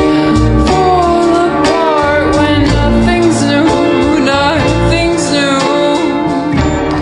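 Slowed-down, reverb-heavy pop track playing with no sung words. A beat with deep bass runs under melody lines that slide up and down in pitch.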